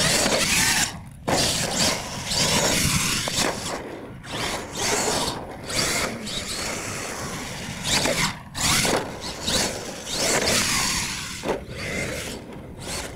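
Electric motor and drivetrain of a radio-controlled monster truck whining in throttle bursts, rising and falling in pitch and cutting out briefly a few times, with tyres on loose dirt.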